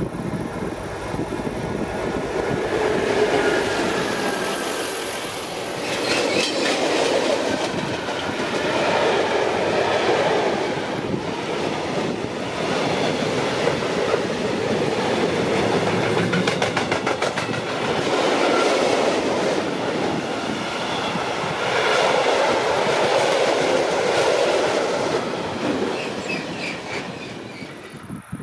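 Freight train of tank wagons rolling past close by: a steady rumble with the clickety-clack of wheels over the rails, swelling and easing every few seconds as the wagons go by, and fading away near the end.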